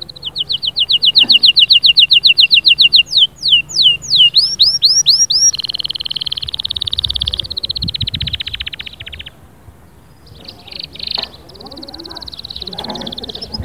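Domestic canary singing: a loud, fast rolling trill of quickly repeated falling notes, then a few slower swooping whistles, then a lower buzzy trill that stops about nine seconds in. After a short pause the song picks up again more softly.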